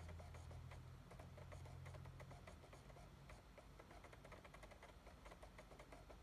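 Near silence: faint room tone with a low hum that fades about halfway through, and light, irregular ticking.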